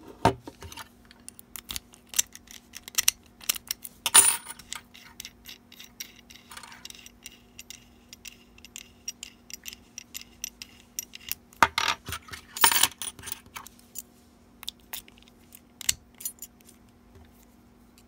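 Small metal clicks and clatter from a truck ignition switch and its lock cylinder being handled and fitted together, loudest about four seconds in and again around twelve seconds in. A faint steady hum runs underneath.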